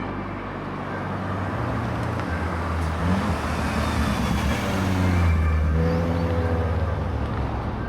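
Car engine running and revving, its low drone swelling up to about five seconds in and easing slightly after. The sound is AI-generated for a clip billed as a turbocharged V6.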